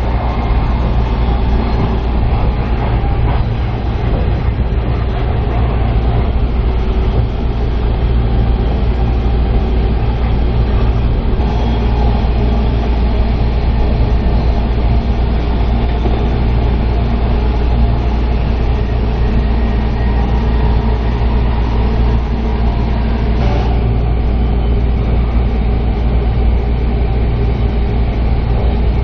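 A train running at speed, heard from on board: a loud, steady, heavy rumble with no break.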